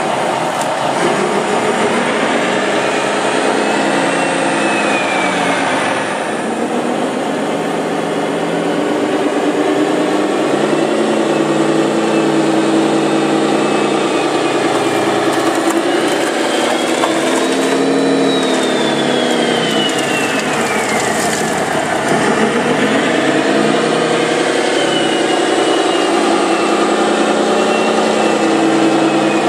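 Radio-controlled model construction machines running: a steady engine-like drone, with motor whines that rise and fall in pitch several times.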